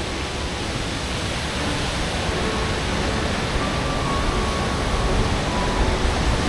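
Steady rushing water, a dense even roar, with faint background music tones underneath.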